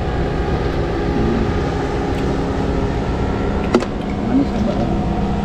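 A steady motor drone with several held tones over a low rumble, and one sharp click a little under four seconds in.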